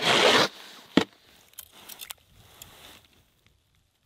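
A brief scraping rush at the start, one sharp knock about a second in, then a few faint clicks: ice-fishing gear being handled at a freshly drilled hole in lake ice.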